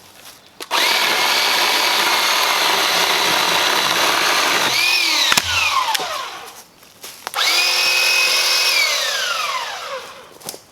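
Bauer 20V cordless electric chain saw cutting wood: the motor whirs up about half a second in and runs for about four seconds with the chain chewing through, then winds down with a falling whine, with a thud as it stops. It runs again for about a second and a half and winds down with a falling whine near the end.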